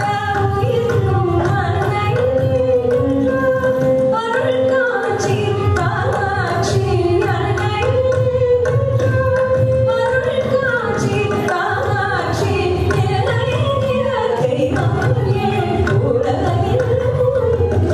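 Female Carnatic vocalist singing a thillana in raga Maand, her voice gliding and ornamenting in continuous phrases over a steady tanpura drone.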